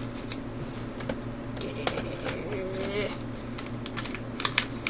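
Small toy package being opened by hand: scattered crinkles and sharp clicks of packaging being pulled at, over a steady low hum.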